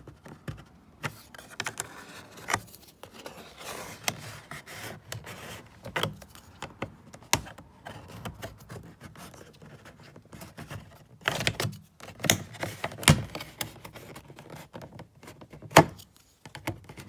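Plastic interior door trim on a Toyota RAV4 being pried loose with a plastic measuring cup: light scraping and rattling with many small clicks, and several louder sharp clicks in the second half.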